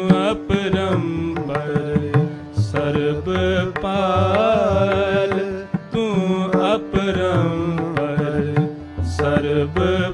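Sikh kirtan music: tabla strokes under a harmonium and a long, wavering sung melody with no clear words, between lines of the shabad.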